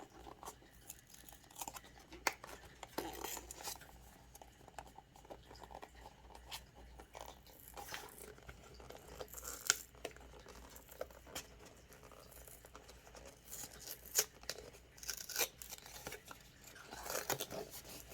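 Blind-box figure packaging being opened by hand: plastic wrap crinkling and tearing, with scattered small clicks and rustles of the box and figure being handled.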